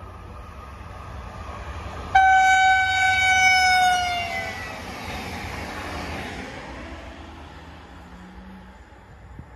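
Regional electric multiple unit sounding one long horn blast about two seconds in, its pitch sagging slightly at the end as the train goes by at speed. Then the rush of the cars passing on the track fades away.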